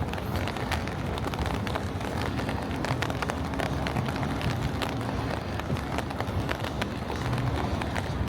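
Footsteps on a paved path, many short irregular taps over a steady low outdoor rumble.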